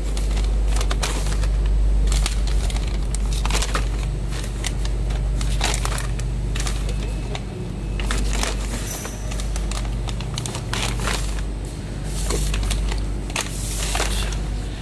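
Plastic zipper pouches of peanuts crinkling and clicking as they are handled and set down on a digital scale, over a steady low hum.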